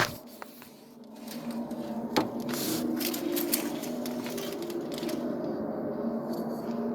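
A steady low hum with a few held pitched tones: an unidentified strange noise from outside that sounds weird to the listener. A sharp click comes about two seconds in.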